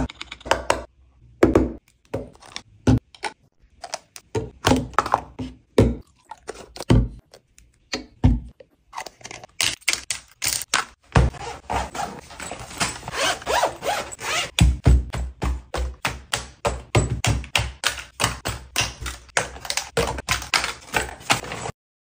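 A run of close-up thunks, clicks and taps from hands handling plastic travel bottles, a jar lid and a fabric toiletries bag on a counter. The knocks are spaced apart at first and come quickly one after another from about halfway through.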